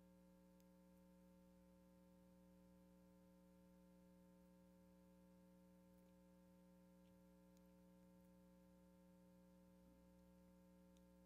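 Near silence with a faint, steady electrical hum in the room tone.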